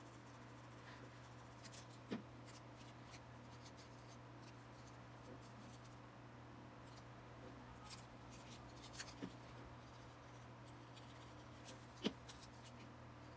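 Faint handling of cardstock: soft paper rubbing and a few light taps and clicks as folded paper pieces are glued and pressed together, the sharpest click about twelve seconds in. A low steady hum runs underneath.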